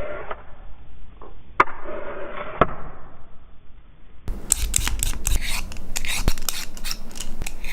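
Potatoes being peeled: repeated scraping strokes with occasional sharp clicks, turning brighter and busier about four seconds in.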